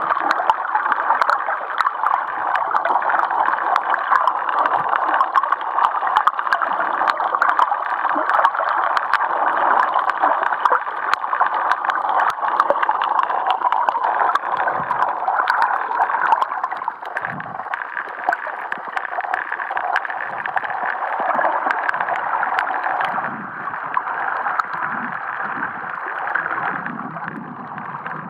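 Underwater ambience over a coral reef, picked up by a camera in a waterproof housing. A steady water hiss is dotted with many fine clicks, and there are some low gurgles in the later part.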